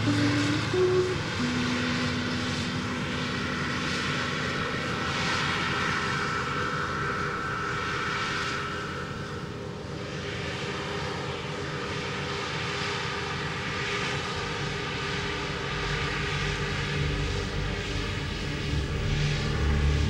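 Claas Lexion combine harvester running in the field: a steady engine drone with a held whine that fades about halfway through, and a low rumble building near the end.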